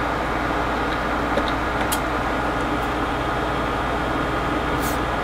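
Steady background hum and hiss of the workshop, made up of several constant tones, with a few faint clicks.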